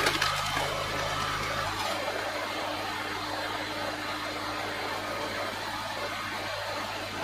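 HYMOG compact tractor engine running steadily, driving the hydraulic pump of a PTO-powered vertical log splitter. One tone in the hum drops out about two seconds in.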